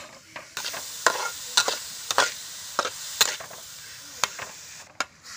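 Small shrimp sizzling in a hot steel wok while a metal spatula stirs them, clinking and scraping against the pan every half second or so. The sizzling cuts off suddenly near the end.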